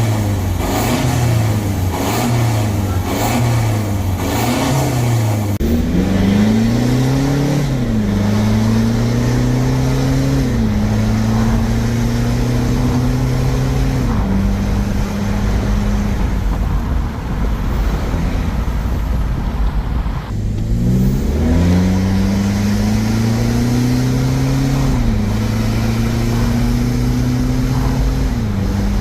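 Toyota Fortuner 2.8 turbodiesel through an aftermarket performance exhaust: several quick rev blips, then it pulls away accelerating through the gears, the note climbing and dropping at each shift. It does this twice.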